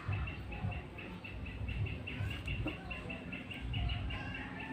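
A bird chirping steadily in the background: a short high note repeated about four or five times a second.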